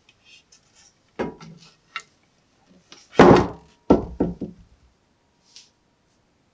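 A rusty antique bush axe, with a steel head and wooden handle, being handled and laid down on a tabletop: scattered knocks and thunks, the loudest about three seconds in, followed by a quick run of smaller knocks.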